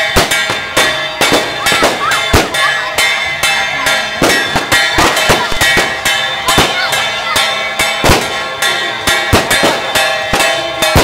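Brass procession hand gong struck over and over, its ringing hanging on between strikes, with firecrackers popping in irregular cracks.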